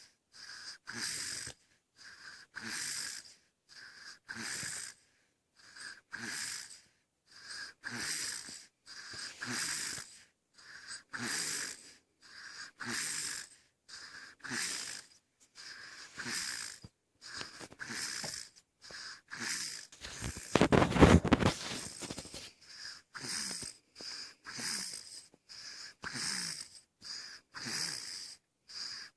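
Snoring in a steady rhythm, one breathy, hissing snore about every one and a half to two seconds. Around twenty seconds in, a louder, rougher noise lasts about two seconds, and then the snoring carries on.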